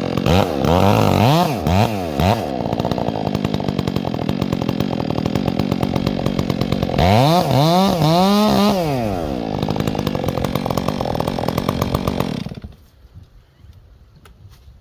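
Chainsaw revving up and down in several quick blips, running steadily, revving up and back down once more about seven seconds in, then cutting off suddenly about twelve seconds in.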